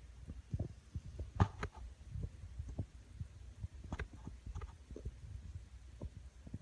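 Snoring in sleep: soft, crackly low rattles that come in clusters about every three seconds, one to each breath.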